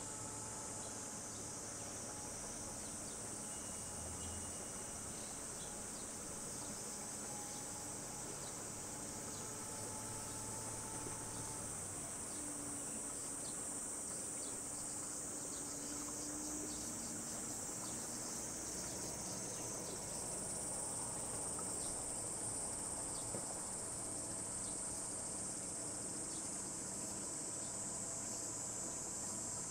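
Cicadas in the moat-side trees droning steadily in a high-pitched chorus, with a faint low hum from the sightseeing boat's small motor underneath.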